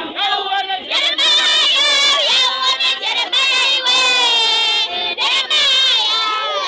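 A group of people singing together loudly in high, wavering voices, rising to full volume about a second in.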